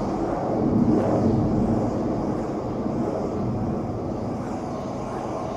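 Steady low rumbling noise, like a passing vehicle or aircraft, with no beat: a sound-effect intro to a house track. It swells about a second in, then eases slightly.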